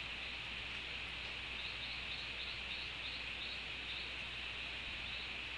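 A small bird calling a run of short high chirps, about three or four a second, starting about a second and a half in, with two more near the end. A steady hiss runs underneath.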